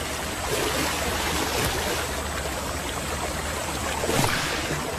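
River water splashing and churning as Nile crocodiles thrash and tear at a wildebeest carcass, with a sharper splash about four seconds in.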